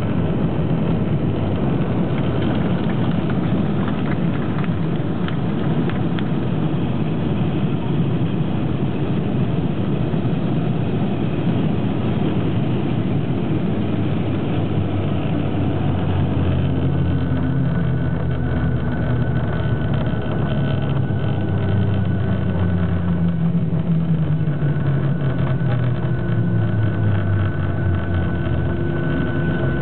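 Cabin noise of a Boeing 737-800 with CFM56 engines rolling out on the runway after touchdown. A loud, dense rush of engine and rolling noise gives way about halfway through to a lower hum whose tones slowly fall as the engines wind down and the aircraft slows.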